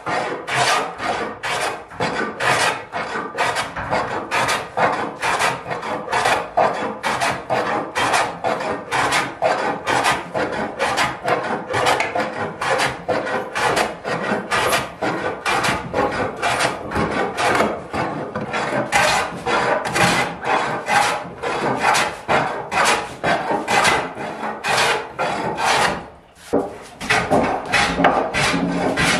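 Metal bench plane shaving the face of an oak slab, in quick repeated strokes about two a second, with a brief pause near the end.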